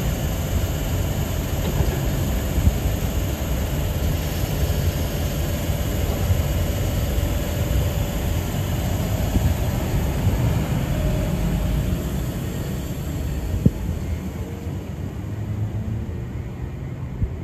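Stainless-steel double-deck Intercity electric train running close past the platform, a steady low rumble of wheels on rail. The rumble fades over the last few seconds as the rear carriage moves away, with one sharp clank a little before it dies down.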